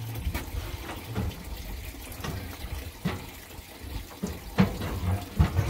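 Split cherry logs being loaded into a wood smoker's firebox: a scattering of knocks and clunks of wood on wood and metal, the loudest near the end, over a steady low rumble.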